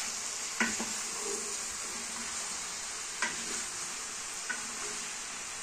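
Sausages and cubed potatoes sizzling steadily as they fry in a pan, stirred with a wooden spoon; three short knocks of the spoon against the pan.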